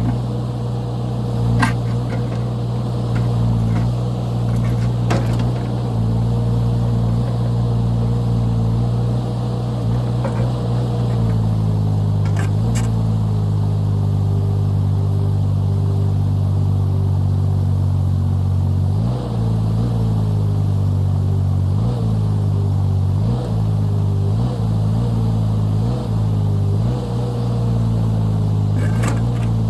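Small diesel engine of a 2-ton mini excavator running steadily at working speed. In the second half it bogs down briefly several times as the hydraulics take load. A few sharp knocks sound over it.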